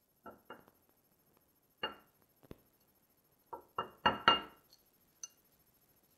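Kitchenware clinking: about ten light strikes of a utensil against a dish, each with a short ring, the loudest cluster a little past halfway.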